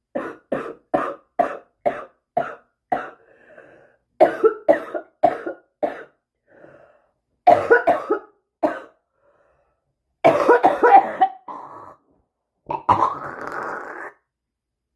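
A smoker's cough: a person coughing in fits. It opens with a run of about eight short coughs, roughly two a second, then comes in clusters of coughs with pauses between them, and ends with a longer, noisier cough.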